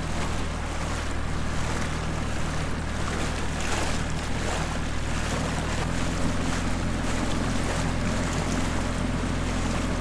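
Small outboard motor pushing an inflatable dinghy at speed, a steady drone, with water rushing along the hull and wind buffeting the microphone. The engine note shifts slightly about six seconds in.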